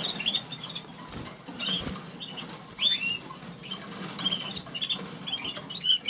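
Caged canaries chirping: scattered short, high calls and whistled notes, some sliding up or down in pitch.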